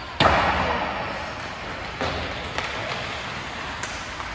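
Ice hockey play in an echoing rink: a loud bang about a quarter second in that rings on through the arena for about a second, then a few lighter knocks about two seconds in and near the end.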